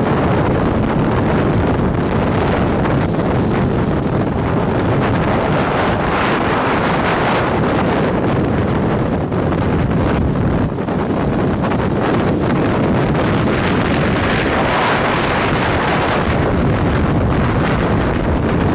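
Strong wind from a nearby tornado rushing steadily over the microphone, mixed with the road noise of a vehicle driving.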